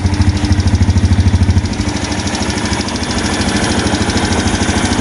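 Yamaha Jupiter Z1's single-cylinder four-stroke engine idling hot, heard up close from the right side, with the light ticking noise that is the owner's complaint. The cause found is excessive exhaust-valve clearance, and the mechanic says a right-side tick like this typically comes from the clutch housing.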